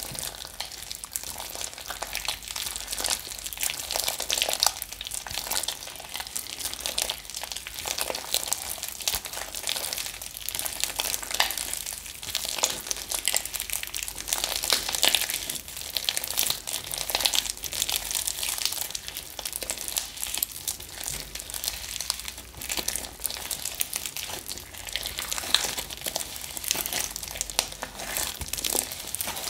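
Thick clay-and-Vaseline slime being kneaded, squeezed and stretched by hand: a steady run of sticky crackles and squishes.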